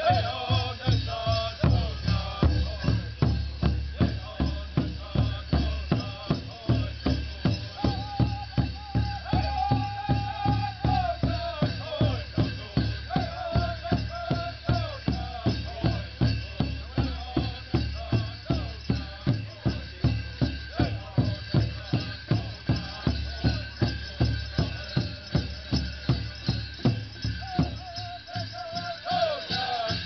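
Powwow drum group pounding a large shared drum in a steady beat, about two or three strokes a second, under high wavering chant-style singing, with a jingling rattle over the beat.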